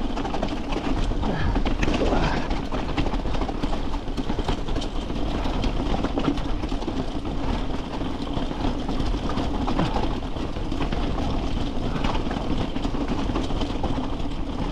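Mountain bike clattering and rattling over rough, rocky trail at speed: a dense, steady run of small knocks from the frame, chain and wheels, over tyre and wind rumble on the action camera's microphone.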